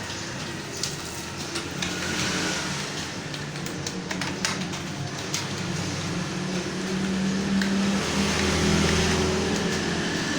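Computer keyboard keys clicking irregularly as someone types, with a motor vehicle's engine humming underneath and growing louder toward the end.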